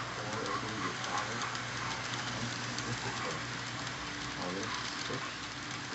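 TYCO HO-scale model train running on the layout: the F9 locomotives' motors running and the freight cars' wheels clicking along the track, over a steady low hum.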